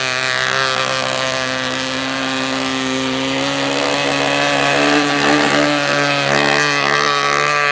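Merco 61 two-stroke glow engine of an RC model speed boat running at speed with a steady, buzzing note whose pitch wavers slightly.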